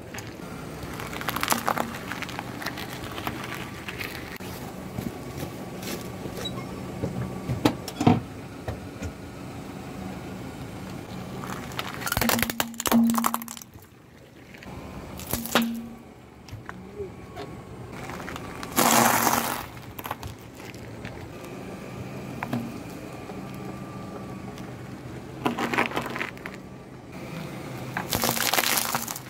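A car tyre rolling slowly over small objects on asphalt and crushing them: several separate cracks and crunches a few seconds apart as brittle clear items shatter and garlic bulbs are flattened, over a low steady engine hum.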